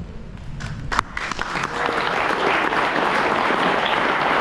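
Audience applauding, breaking out about a second in and swelling quickly to steady, full clapping.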